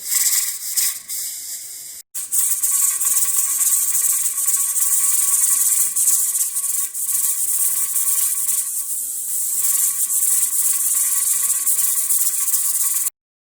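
All-American pressure canner at about 10–11 pounds of pressure, steam hissing steadily past its dancing weighted regulator; a steady hiss at this pressure means the canner is holding its processing pressure. The hiss breaks off briefly about two seconds in and stops abruptly near the end.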